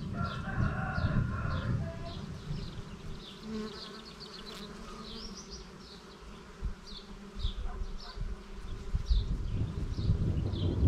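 Outdoor ambience: wind rumbling in gusts on the microphone, with a small bird chirping repeatedly at about two short high chirps a second.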